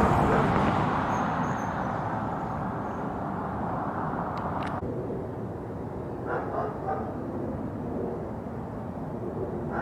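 Steady passing-traffic noise, loudest at first and easing off, with a dog barking a few times about six to seven seconds in.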